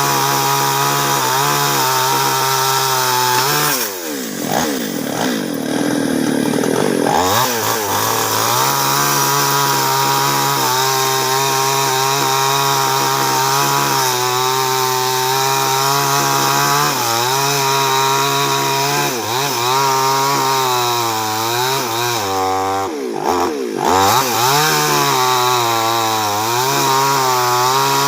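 Two-stroke chainsaw running at high revs as it cuts through a very large sengon log. Its engine pitch sags under load and picks back up several times.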